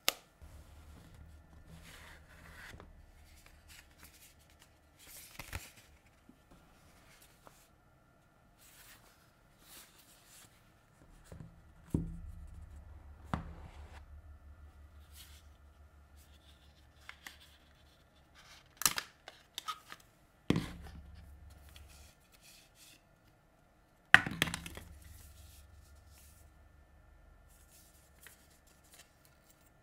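The cardboard and paper packaging of a Google Pixel 9 Pro XL box being opened close to the microphone. A paper pull tab tears off at the start, then soft rustling and several sharp taps and clicks follow, the loudest a little past halfway and about four-fifths in.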